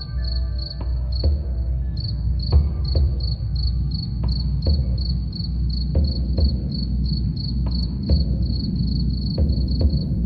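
A cricket chirps steadily, about four chirps a second, over slow low drum beats. Wind chimes ring and die away in the first couple of seconds.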